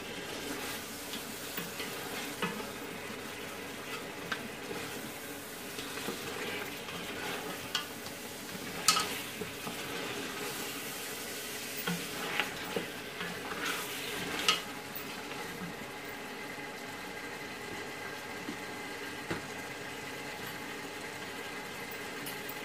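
Mutton pieces browning and sizzling in a large aluminium pot, stirred with a wooden spoon, with a few knocks and scrapes of the spoon against the pot between about nine and fifteen seconds in. After that only the steady sizzle.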